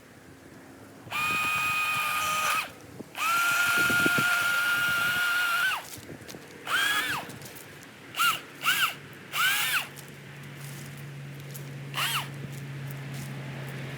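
A power saw's motor whines at a steady high pitch in two sustained runs, then is triggered in short blips that rise and fall in pitch. A low steady hum comes in about eight seconds in.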